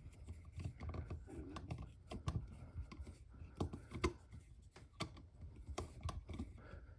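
Faint, irregular clicks and scrapes of a screwdriver turning the terminal screws of an electrical outlet, tightening the wires down.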